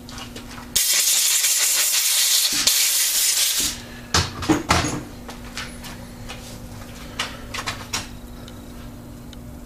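A loud hiss lasting about three seconds, then a run of sharp metallic clinks and lighter clicks as the finished steel bolt and small metal parts are handled. A steady low hum runs underneath.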